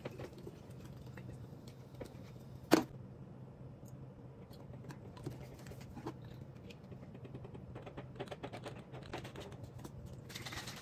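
Glass bottles and a cap being handled on a wooden table: light clicks and taps, with one sharp knock about three seconds in as a bottle is set down. Near the end comes a run of small clicking as a cap is screwed onto a bottle.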